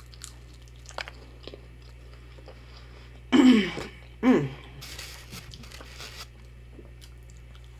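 Close-miked chewing and crunching on fried onion rings, with small scattered mouth clicks and a longer crunchy hiss about five seconds in. There are two short vocal sounds a little after three and four seconds.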